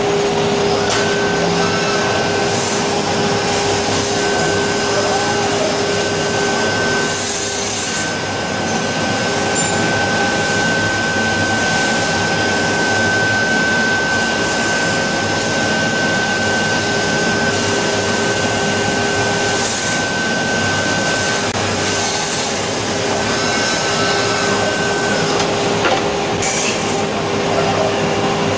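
StrojTOS MC80 five-axis CNC milling machine running a cut: a steady spindle hum with a high whine over a spray of coolant. A few short, sharp high-pitched bursts come through, and the whine stops a few seconds before the end.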